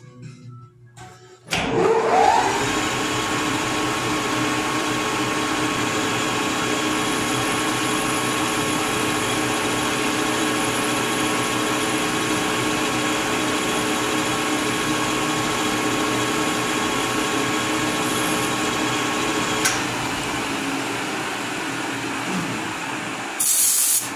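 Metal lathe switched on about one and a half seconds in, its spindle spinning up with a rising whine and then running steadily with a constant motor and gear whine. A click comes about twenty seconds in, after which the running sound eases slightly, and a short loud hiss comes near the end.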